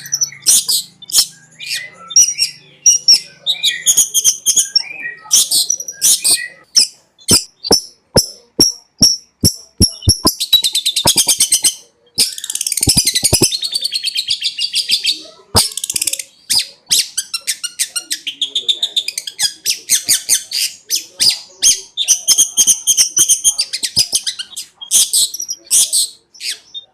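Long-tailed shrike (cendet) singing: a fast, loud string of sharp, high chirps and clicks, broken around the middle by two harsh, buzzy rattling passages.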